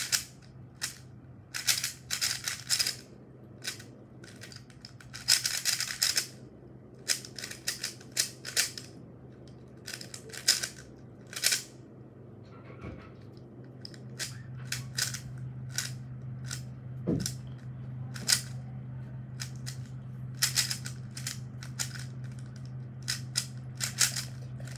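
YJ RuiLong speed cube being turned rapidly while it is solved: clusters of quick plastic clicks and clacks with short pauses between them, over a steady low hum.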